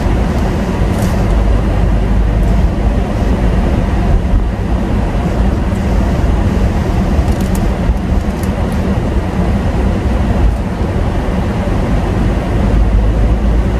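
Steady low rumble of car road and engine noise, heard from inside the cabin while driving.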